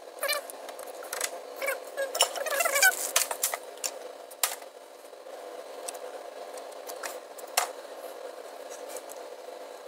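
Small clicks, knocks and rattles of parts being handled as fuel injectors are pressed into a plastic intake manifold. There is a run of short squeaks in the first three seconds, a sharp click about halfway through and another near three-quarters of the way.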